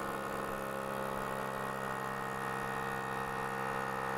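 Small electric air pump running with a steady hum, sucking the air out of a balloon gripper so the filler material inside contracts and grips a rock.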